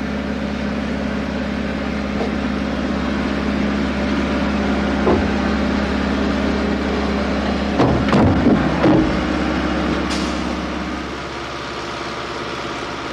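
Landing gear of a MiG-23BN being retracted in a ground test, over a steady machine drone. A clunk comes about five seconds in and a louder run of knocks and clanks around eight to nine seconds; the drone eases slightly near the end.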